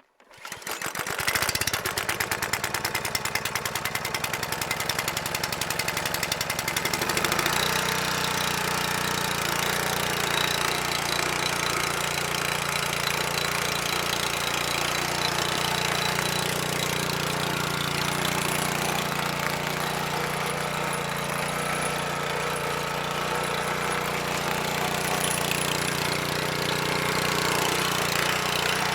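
Rotary milling machine starting up and running: a fast, rough pulsing for the first several seconds, then a steady running hum.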